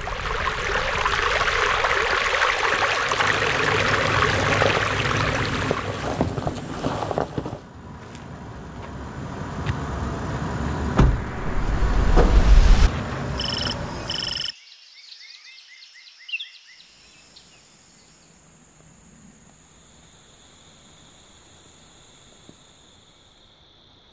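Several seconds of loud, even rushing noise, then quieter noise with a few knocks and a heavy thump, and two short beeps. It cuts suddenly to quiet woods where insects trill steadily at a high pitch, a second, lower trill joining near the end.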